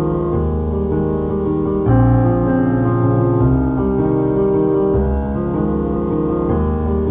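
Background piano music: slow, sustained chords that change about every second and a half.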